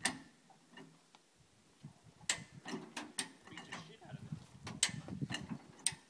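A high-lift farm jack being pumped under the rear of a lifted pickup. Its climbing pins catch the notched bar with a series of sharp metallic clacks, spaced unevenly.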